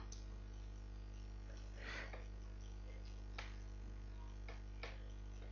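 Faint computer keyboard and mouse clicks, a few scattered taps, over a steady low microphone hum.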